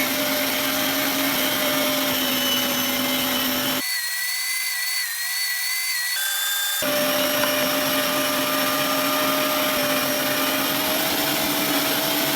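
Small electric kitchen appliance motor running steadily with a constant hum and whine. For about three seconds in the middle the low hum drops out, leaving only a thinner, higher whine, before the full sound returns.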